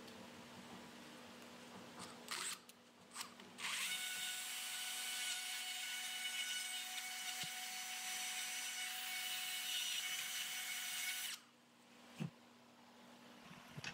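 Straight die grinder with a small abrasive wheel grinding out the bore of a cast-iron truck gearbox part, preparing it for a new bushing. It gives two short bursts, then runs steadily with a high whine for about seven seconds and stops abruptly.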